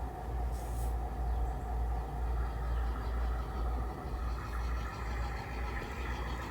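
Garden-railroad model locomotive running slowly through the yard: a steady motor and gear hum over a low rumble, with a brief light click about half a second in.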